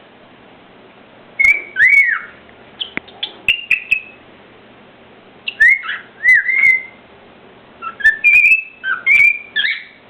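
A cockatiel whistling in three short phrases of rising and falling notes, with sharp clicks among them.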